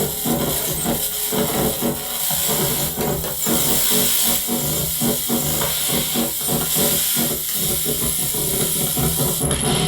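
Experimental noise music from a no-input mixer and microwave electromagnetic interference: a dense hiss with rapid, irregular stuttering crackles over steady low hum tones. A thin, high steady whine comes in near the end.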